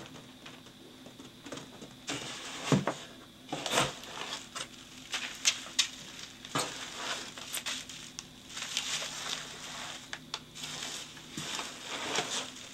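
Bubble wrap and packing material crinkling and rustling as wrapped packages are handled inside a cardboard box, with irregular rustles and a few louder crackles.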